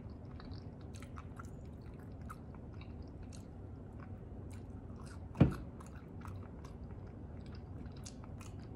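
Close-miked chewing of McDonald's french fries: soft wet mouth sounds with many small clicks. There is one brief, louder thump about halfway through.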